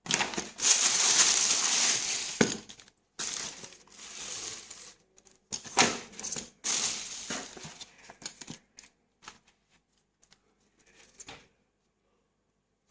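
Packaging being handled and crinkled while unboxing a pair of boots: loud rustling bursts in the first few seconds, then more rustles, then a few light clicks and handling sounds that die away over the last seconds.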